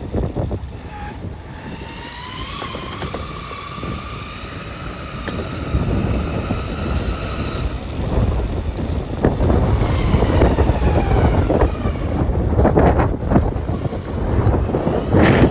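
Ecomobl ET electric skateboard being ridden, with wheel rumble and wind on the microphone. The motors' whine rises in pitch early on as the board speeds up, holds steady, and falls again later.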